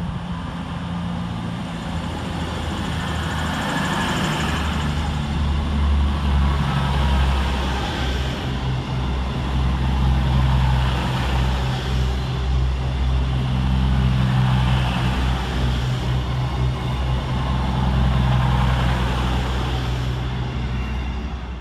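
CrossCountry Class 221 Super Voyager diesel-electric multiple unit passing through the platform, its underfloor Cummins diesel engines giving a steady low drone over wheel and rail noise. It grows louder over the first few seconds and drops away near the end.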